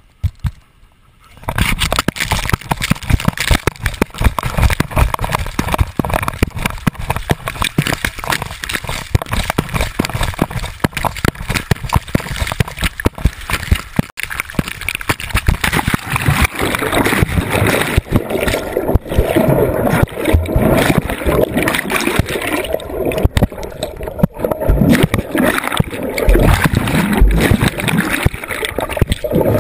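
Seawater splashing, sloshing and gurgling over a GoPro worn on the chest of a golden retriever wading and swimming in the sea, starting about a second and a half in. It is a dense, crackling rush of water with the camera dipping in and out of the surface.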